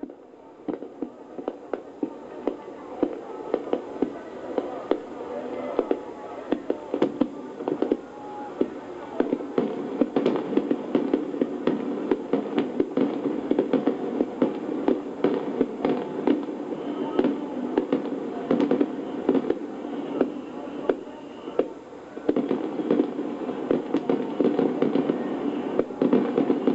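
Fireworks display: a dense, continuous barrage of bangs and crackles, several a second, over a steady din. It swells louder about three-quarters of the way through.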